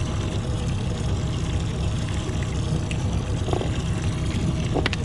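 Steady low rumble of water and boat noise around a small fishing boat, with a faint steady hum through it. A few light clicks, the sharpest near the end.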